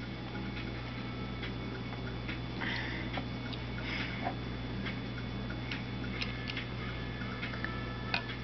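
Scattered light clicks and taps of large plastic Mega Bloks toy blocks being handled, pulled apart and set down, over a steady low hum.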